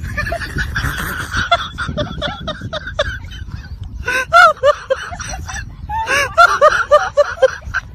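Laughter: runs of short, high, bouncing giggles, loudest about four seconds in and again near the end, over a steady low outdoor rumble.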